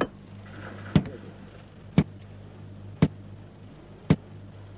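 Hammer driving a steel rail spike into a railway sleeper: five sharp strikes about a second apart, over a steady low hum.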